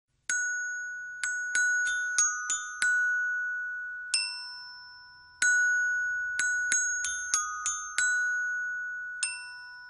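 Background music: a slow melody of struck, bell-like notes in the manner of a glockenspiel, each note ringing and fading away, played as two similar phrases.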